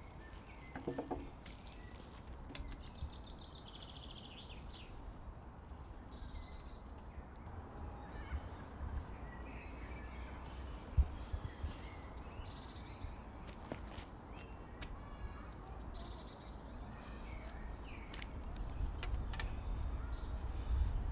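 Outdoor ambience of small birds chirping: short, high, falling chirps repeat every couple of seconds over a low steady rumble, with a brief trill near the start and a single sharp knock about halfway through.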